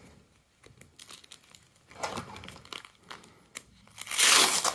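Plastic binder sleeve pages crinkling and rustling as they are handled while football cards are worked out of them, with the loudest, longest rustle near the end.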